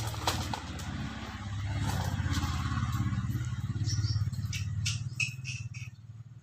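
A motor vehicle engine running, growing louder through the middle and fading toward the end, with a few short clicks near the end.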